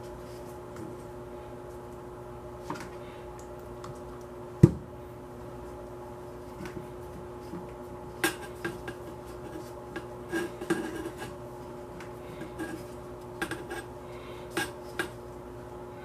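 Light metallic clicks and clinks of an AR-15 lower receiver and its parts being handled and wiped with a cloth, coming in small scattered groups, with one heavier thump about four and a half seconds in. A steady low hum runs underneath.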